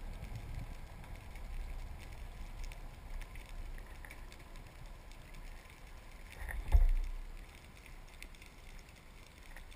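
Underwater noise picked up by a camera carried on a speargun while swimming along the seabed: a low rumble of water movement with faint scattered clicks. About two-thirds of the way through there is a single low thump, the loudest sound.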